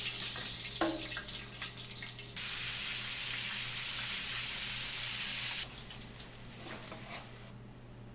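Beef sizzling in a hot frying pan as a steady hiss, which cuts in sharply a couple of seconds in and stops a few seconds later. Just before that, about a second in, there is a single metal clank of tongs against a steel pan.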